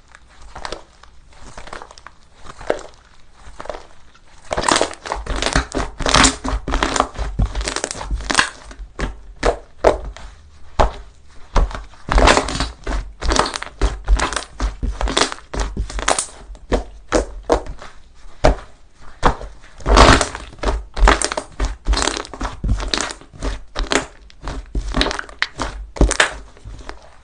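Slime being worked by hand, giving dense, irregular crackling and popping clicks; softer for the first few seconds, then louder.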